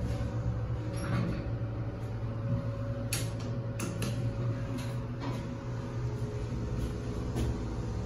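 Steady low hum inside a passenger elevator cab, with a few sharp clicks about halfway through as a floor call button is pressed.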